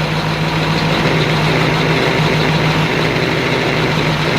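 1950 Ford 8N tractor's four-cylinder flathead engine running at a steady idle.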